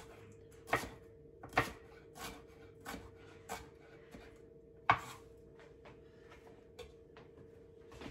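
Chef's knife chopping celery on a wooden cutting board: irregular knocks of the blade through the stalk onto the board, roughly one every half second to second. The loudest knock comes about five seconds in, and the strokes turn fewer and fainter near the end.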